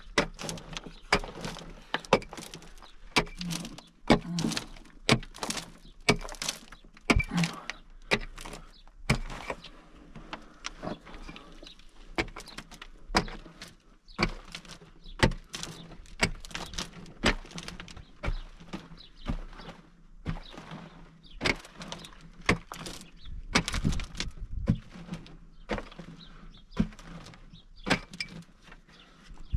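Hand tool striking hard, dry earth and stone over and over, digging out a cave wall: irregular sharp knocks, roughly one or two a second, with some scraping and falling grit between them.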